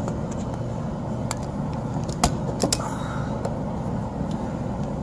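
A steady low mechanical drone of running machinery, with several sharp clicks and taps of hand tools on electrical wiring, mostly around the middle.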